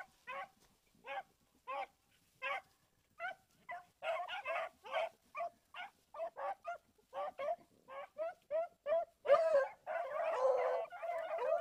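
A pack of rabbit hounds baying on a rabbit's trail. At first there are single barks about once a second; from about four seconds in they become a busier chorus, and near the end several dogs give voice together.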